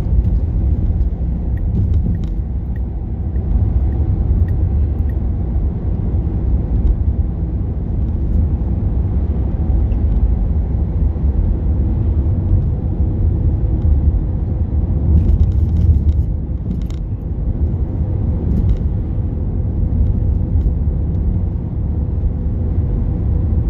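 Car cruising at steady speed on an open road, heard from inside the cabin as a steady low rumble of tyre and engine noise.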